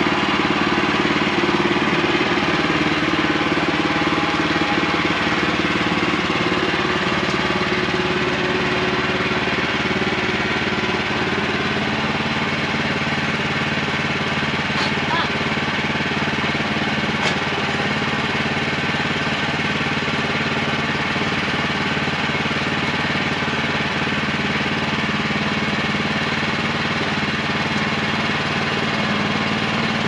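Gasoline engine of a Woodland Mills portable bandsaw sawmill running steadily.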